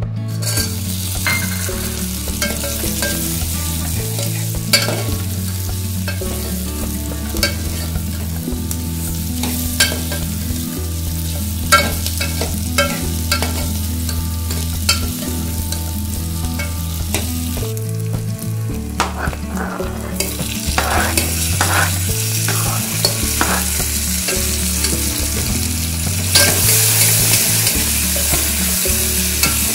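Chopped vegetables sizzling in hot oil in an aluminium pressure cooker, stirred with a steel ladle that clicks and scrapes against the pot. The sizzle gets louder about 26 seconds in.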